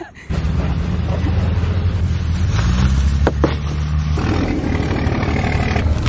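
A vehicle engine idling close by: a steady low hum that starts suddenly and rises a little in pitch partway through. Two light knocks come about three seconds in, as bags go into the cargo area.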